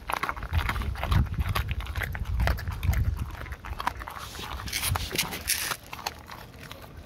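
Dog mouthing and chewing a raw gilt-head bream, with many small wet clicks and crunches. A heavy low rumble runs under the first three seconds, and a breathy hiss comes around five seconds in.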